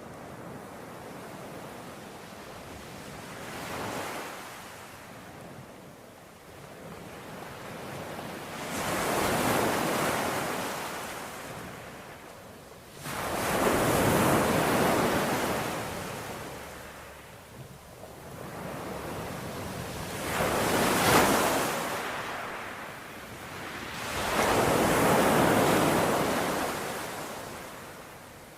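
Ocean waves surging and washing in, about five swells that each build and fade over a few seconds.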